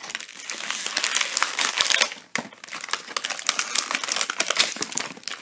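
Plastic toy packaging being handled and crinkled in the hands: a dense run of crackles, with a short pause a little after two seconds.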